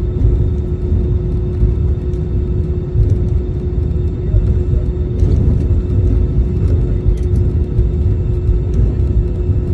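Airbus A320-family airliner heard from inside the cabin while taxiing: a steady low rumble from the idling engines and rolling gear, with one constant mid-pitched hum running through it and faint rattles.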